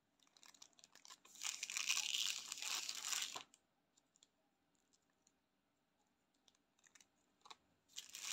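Crinkly plastic candy wrapper rustling and crackling as a sugar-coated sour tape candy is pulled out of its sleeve. There is a dense burst of crackling starting about a second in and lasting about two seconds, light scattered crinkles after it, and a second short burst near the end.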